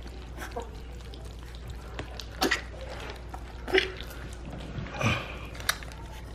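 Three-week-old puppies lapping and slurping wet mush from a steel bowl, with four short, louder sounds standing out over the lapping.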